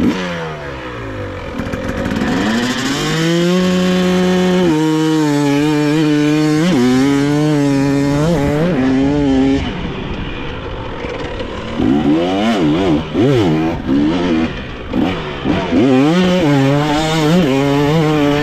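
Dirt bike engine running hard around a motocross track: it holds fairly steady revs for several seconds, drops off briefly about ten seconds in, then from about twelve seconds in the pitch rises and falls rapidly again and again as the throttle is opened and shut.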